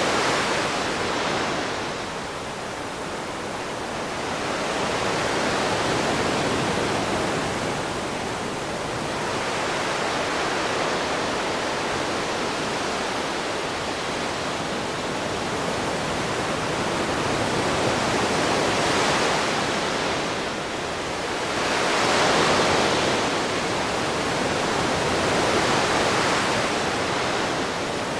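Ocean waves washing on a shore: a continuous rush of surf that swells and eases every few seconds.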